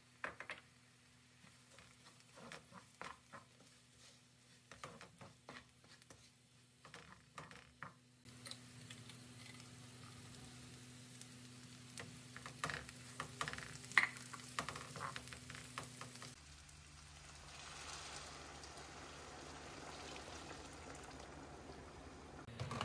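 A wooden spoon stirring bulgur, lentils and sautéed vegetables in a stone-coated pot, with irregular scrapes and clicks. About two-thirds of the way through, hot water poured into the hot pot sets off a steady sizzle and bubbling.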